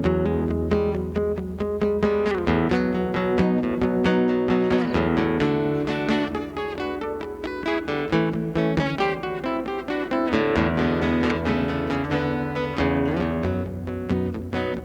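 Acoustic guitar playing an instrumental break between sung verses of a live blues song, with picked and strummed notes over a steady low bass line.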